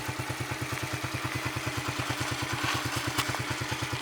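Yamaha Crux motorcycle's single-cylinder four-stroke engine idling with a steady, even, fast putter. A single sharp click sounds about three seconds in.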